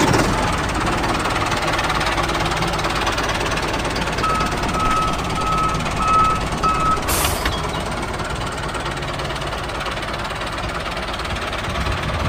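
Vehicle engine running steadily, like a tractor or truck. Around the middle come about five short, evenly spaced beeps like a reversing alarm, then a brief hiss.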